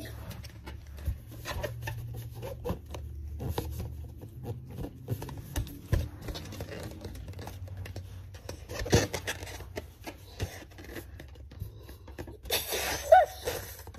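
Inflated latex glow balloon handled close to the microphone: scattered rubbing, scraping and tapping on the rubber, with one louder knock partway through. Near the end, a short rush of breath is blown into its neck, with a brief squeak.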